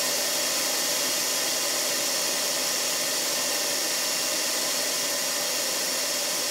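Moulinex food processor running steadily, its blade chopping avocado into guacamole.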